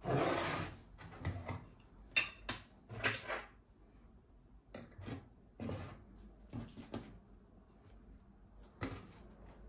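Kitchen handling noises: a short burst of rubbing or rustling at the start, then scattered knocks and taps of things being picked up and set down.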